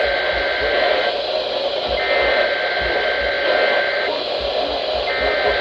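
Emergency Alert System SAME digital header bursts from a weather-radio Required Weekly Test: raspy two-tone data bursts about two seconds long with about a second's gap between them, over a steady radio hiss.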